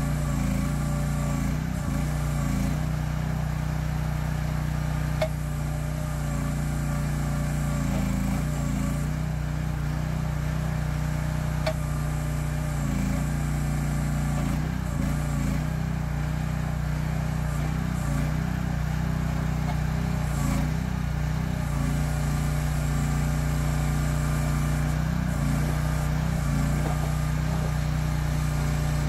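Small Briggs & Stratton gasoline engine of a mini excavator running at a steady speed as the boom and bucket are worked. Two short sharp clicks, about five and about twelve seconds in.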